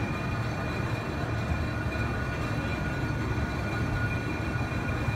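Railroad turntable turning with a small steam switcher and its passenger car aboard: a steady low rumble with a faint high whine over it.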